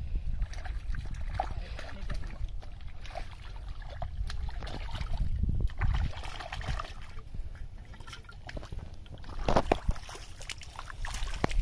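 Hands splashing and sloshing in shallow muddy water while groping through the mud for carp, in short irregular splashes over a steady low rumble. A cluster of louder splashes about nine and a half seconds in, as feet step through the mud.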